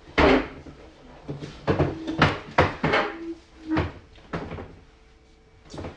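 A string of knocks and bumps from an upholstered dining chair being pulled out and moved at the table, with a couple of short squeaks. The loudest knock comes right at the start.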